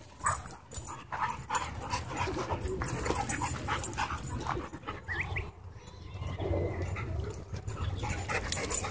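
Dogs playing rough: panting, with a brief rising whine about five seconds in and scattered scuffs and knocks.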